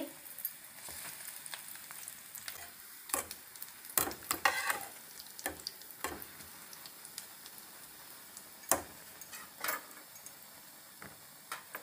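Round bread slices shallow-frying in hot oil in a pan: a steady sizzle with scattered crackles and pops. A few louder clicks and scrapes come from a metal spatula turning the bread, the loudest about four to five seconds in.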